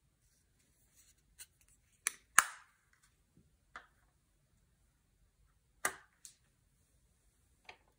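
Scattered sharp clicks and taps of small hard plastic items, a makeup compact and a spatula, being handled and set down. The loudest are two close together about two seconds in, with single ones near four, six and eight seconds.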